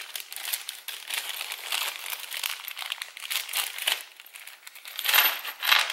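Small clear plastic zip-lock bag crinkling as it is handled, a fast run of crackles that grows loudest near the end.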